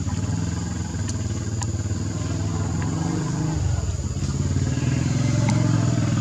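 A motor vehicle engine running close by: a steady low hum that grows louder toward the end, with a few faint clicks over it.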